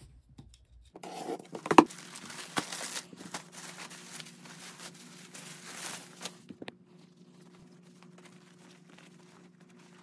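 Clear plastic clothing bag crinkling and tearing as it is pulled open, with a sharp snap about two seconds in. The crinkling stops after about six seconds, leaving only light handling sounds.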